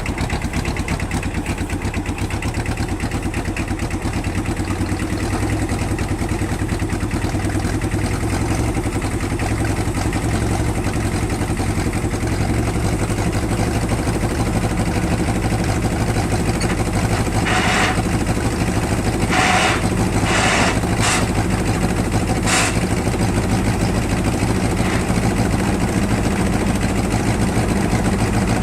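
John Deere bulldozer's diesel engine running steadily, with several short rushing noise bursts in the second half.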